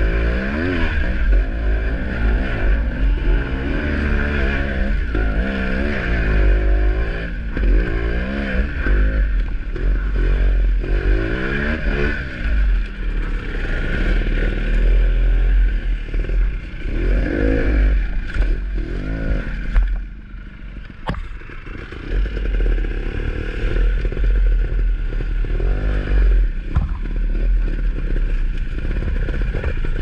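Dirt bike engine revving up and down over and over with the throttle, over a heavy low wind rumble on the microphone and occasional knocks. About twenty seconds in it drops to a quieter low running for a couple of seconds, then picks up again.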